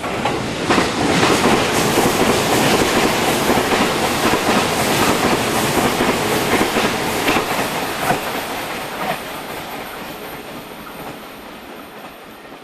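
Passing train on the line: wheels clattering over rail joints in a dense run of clacks, loudest for about eight seconds, then fading away as it recedes.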